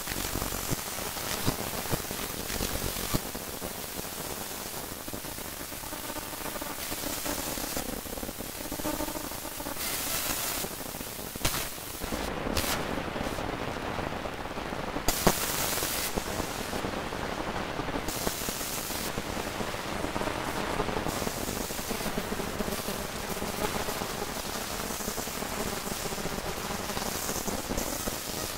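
Dense crackle and static hiss with scattered sharp pops, over faint, muffled, wavering tones: a heavily degraded, record-like noise collage.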